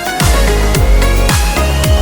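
Electronic dance music with a deep kick drum about twice a second and a thin synth tone slowly rising in pitch.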